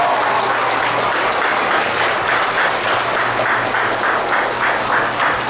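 Crowd of schoolchildren and staff applauding; from about a second and a half in the clapping falls into a steady rhythm of about three claps a second.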